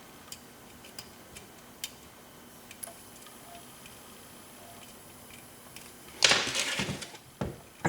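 Faint, scattered clicks of a lock pick working the pin stack of a Corbin Russwin pin-tumbler cylinder, then a louder scraping burst about six seconds in and a couple of short knocks near the end.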